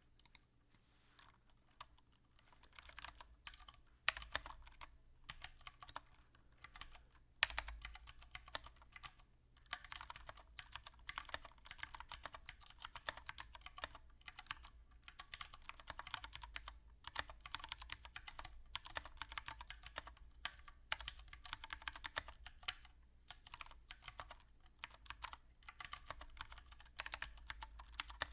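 Typing on a Mistel MD770BT split mechanical keyboard with Cherry MX Brown tactile switches, set on rubber feet: a quick stream of keystroke clicks, with two louder single key strikes about 4 and 7.5 seconds in.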